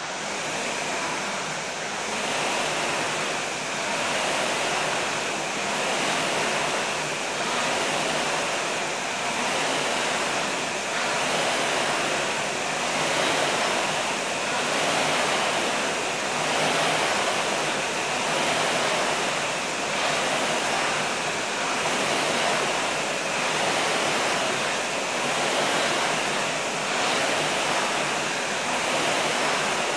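Concept2 rowing machine's air-resistance fan flywheel whooshing under hard rowing, the whoosh swelling with each drive stroke about every two seconds.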